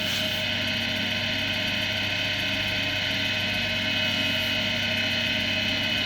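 Axminster AC240WL wood lathe running steadily, a whine of several steady tones over a low hum. A light hiss on top stops about half a second in.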